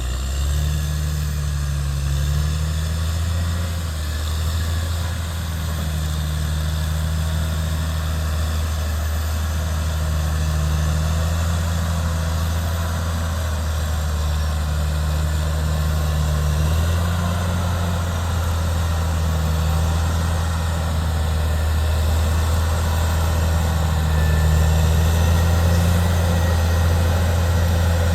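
Caterpillar D6R XL bulldozer's diesel engine running steadily, its low pitch shifting slightly about two thirds of the way through.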